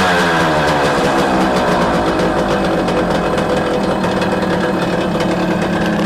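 Small motorcycle engine coming down off a rev and settling into a steady, fast-firing run.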